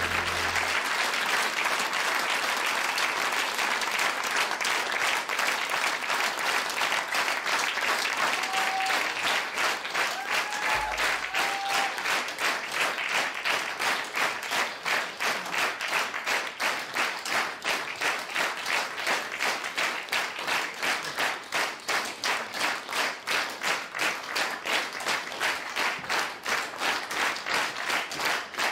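Audience applauding. The clapping is scattered at first, then about halfway through it settles into rhythmic clapping in unison, roughly two to three claps a second.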